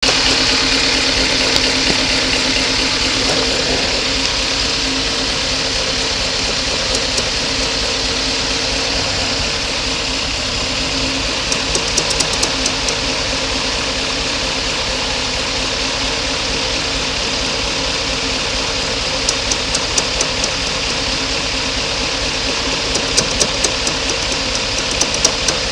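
Mercedes-Benz W124 500E's fuel pumps giving a steady pulsing hum, the fuel-pulsation noise that is the abnormal sound being checked. Several short bursts of rapid ticking come and go in the second half.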